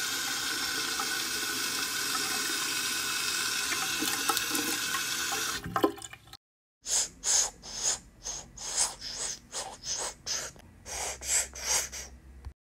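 Water running steadily, as from a tap, for about six seconds. After a brief cut to silence comes a series of short hissing bursts, roughly two a second.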